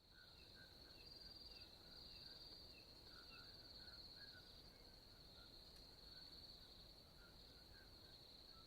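Faint night ambience of crickets: a steady high trill, with short chirps repeating about twice a second for the first few seconds and softer scattered chirps throughout.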